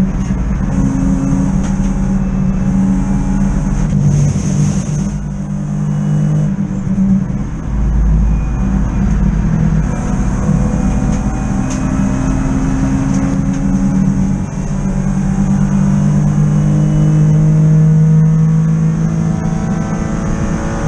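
BMW E36 323i race car's 2.5-litre straight-six, heard from inside the cabin under race load, its revs climbing and falling through gear changes and braking. The engine note drops briefly about seven seconds in and again around fourteen seconds, then pulls up in one long rise.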